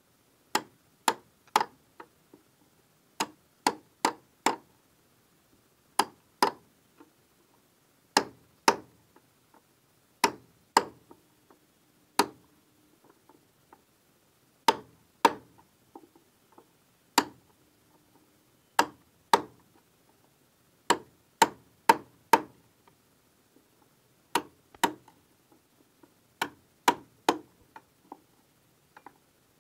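Hammer striking a chisel to cut a notch in a wooden board: sharp knocks in quick clusters of one to four, about every two seconds.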